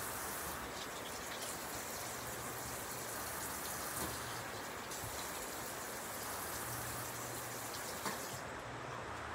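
Running water: a steady rushing hiss with a few faint ticks and drips.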